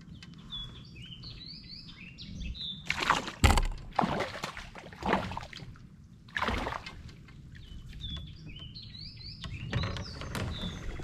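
Birds singing in quick gliding chirps, with several loud short rushes of noise in the middle, the loudest carrying a low thump about three and a half seconds in.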